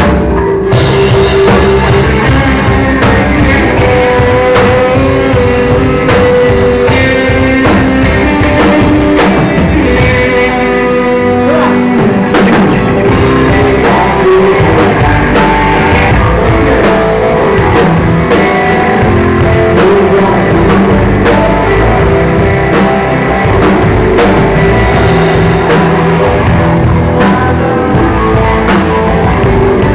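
Rock band playing live: electric guitar to the fore over drums and bass, with singing.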